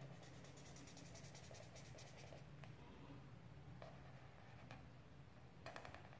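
Faint scratching of a black marker pen on paper: a run of quick back-and-forth strokes filling in a small shape over the first two seconds, then a few short single strokes.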